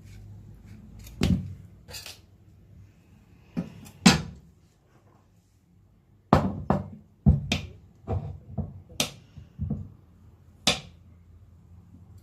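A series of sharp knocks and clatters from objects being handled. A few come singly in the first half, then a quicker run of about eight follows, roughly two a second.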